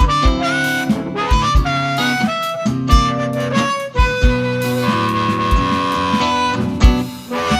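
Blues band playing live: a harmonica carries the lead with bent and long held notes over guitar, bass and a steady kick drum.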